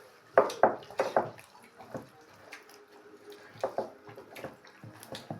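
A few quick groups of sharp clinks and knocks, like dishes and utensils being handled at a meal.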